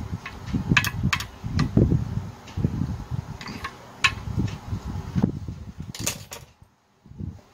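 Irregular clicks, taps and dull knocks of plastic and metal parts being handled and fitted by hand on a four-stroke brush cutter engine during reassembly, with a brief pause near the end.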